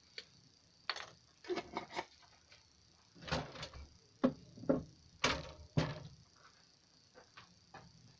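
Handling knocks and short scrapes as a steel spoon is set down on a table and a small glass jar is picked up and handled: a series of separate clunks and clinks, the loudest a little past the middle.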